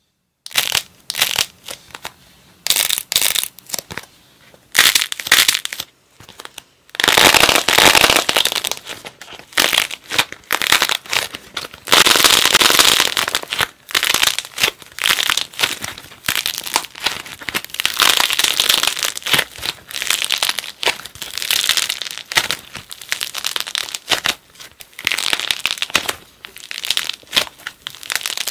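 Hands crushing a painted clay figure: its hardened outer crust cracks and crumbles in irregular bursts of crackling, with longer, louder spells of crunching. Toward the end the broken crust is squeezed and kneaded into the soft clay underneath.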